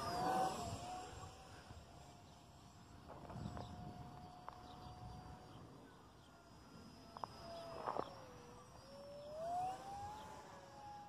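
Whine of a small RC foam plane's brushless motor and 6-inch three-blade propeller, loudest as the plane passes close overhead at the start, then a thin distant tone. About eight seconds in the pitch sags and then climbs again. A few faint clicks are heard.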